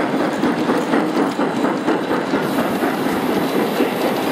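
G scale model freight train, drawn by a steam locomotive, rolling past on metal track, its wheels clicking steadily over the rail joints. A high hiss joins in a little past halfway.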